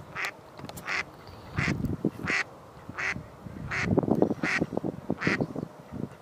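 Duck quacking: a short call repeated steadily about every three-quarters of a second, eight times, over lower, rougher clattering noise that swells about four seconds in.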